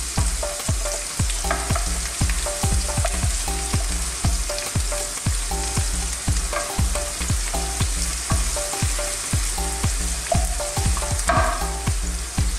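Sliced onion, garlic, ginger and green chilli sizzling steadily in hot oil in a nonstick wok, stirred with a wooden spatula.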